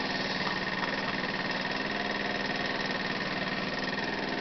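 GY6 150cc single-cylinder four-stroke scooter engine idling steadily, with a steady high tone over it.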